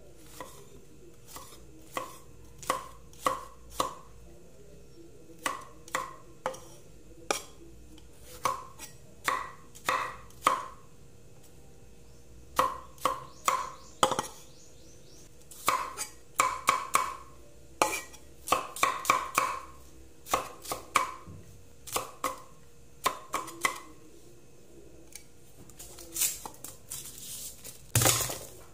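A heavy cleaver chops tomatoes and onions on a thick wooden chopping board: runs of sharp knocks with short pauses between them. There is a heavier thump near the end.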